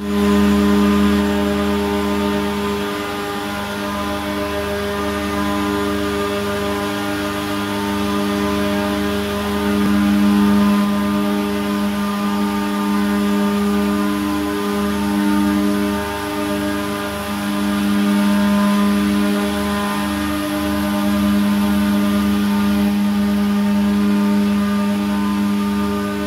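Corrugated cardboard production line (corrugator) machinery running: a steady, loud mechanical drone made of several held tones, with a low throb underneath that pulses faster in the second half.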